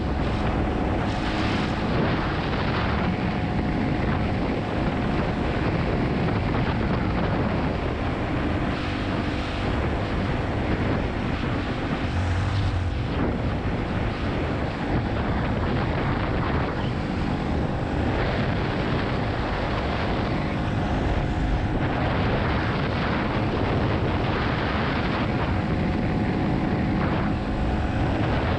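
Yamaha XT250's single-cylinder four-stroke engine running steadily while the motorcycle is ridden, with wind noise over the microphone.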